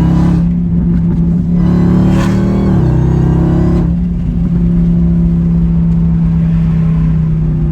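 Dodge Hellcat's supercharged 6.2-litre V8 running steadily while driving, heard from inside the car; its pitch steps down slightly about three seconds in.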